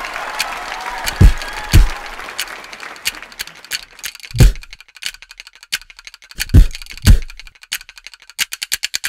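Khartal, the Rajasthani wooden clappers, clicking in a free solo, with five deep drum strokes in the middle. The clicks speed up into a fast roll near the end. Applause fades out over the first couple of seconds.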